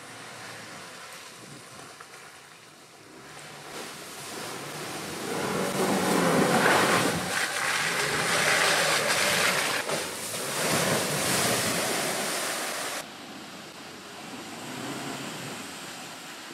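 Land Rover Defender 90 driving up a muddy track: mostly the rush of tyres working through wet mud, with little engine tone. The sound swells as it passes close, then drops off abruptly about thirteen seconds in.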